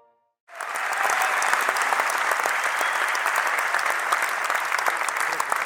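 Crowd applauding: many hands clapping in a dense, steady ovation that starts suddenly about half a second in, used as a success sound effect.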